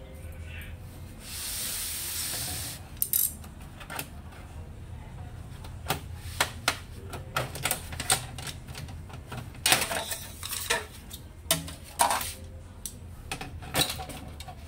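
Irregular plastic clicks and knocks as the HP LaserJet M26a laser printer's plastic housing and internal parts are handled and pried with a screwdriver. About a second in, a steady hiss lasts about a second and a half.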